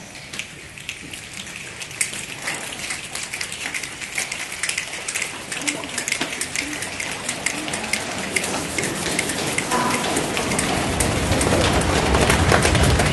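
A congregation making a rainstorm with their hands: a hiss of rubbing palms with many quick snaps and pats, growing steadily louder and heavier toward the end like rain building to a downpour.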